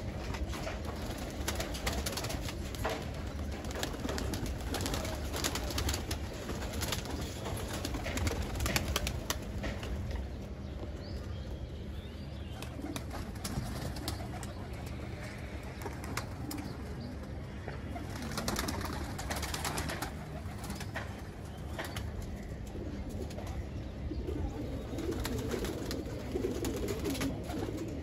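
Domestic pigeons cooing in and around their loft, with scattered sharp clicks throughout; the cooing is strongest near the end.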